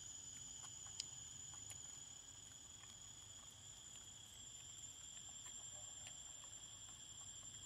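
Faint, steady high-pitched insect drone, with one sharp click about a second in.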